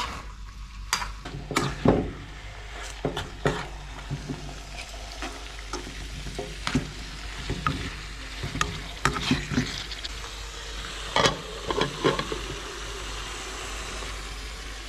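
Raw lamb pieces frying and sizzling in a pan, just added to oil and onion paste, while a metal spoon stirs them, with irregular clicks and scrapes of the spoon against the pan.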